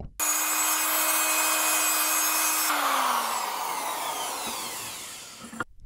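A 3-inch cutoff tool's spinning wheel grinds through a 1/8-inch steel drill bit clamped in a bench vise: a steady whine with a grinding hiss. About two and a half seconds in, the tool is let off and its whine falls steadily in pitch and fades as the wheel spins down.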